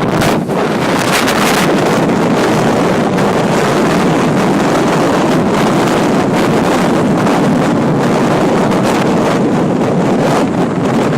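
Strong wind blowing hard across the microphone: a loud, steady rush of noise with no let-up.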